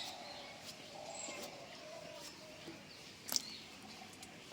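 Knife cutting pumpkin into small pieces, with one sharp knock about three seconds in. Birds chirp faintly in the background.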